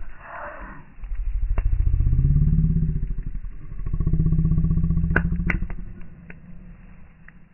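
A motor engine revs up twice, its pitch rising each time, with a quick series of firing pulses. A few sharp pops come from the burning wood fire near the middle.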